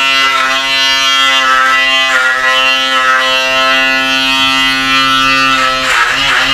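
Handheld electric beard trimmer running with a steady buzzing hum, its pitch dipping slightly twice as it cuts through the beard.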